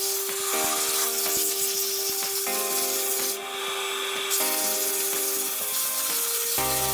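Sandpaper rubbing against a spalted hickory mug spinning on a wood lathe: a steady, rough hiss.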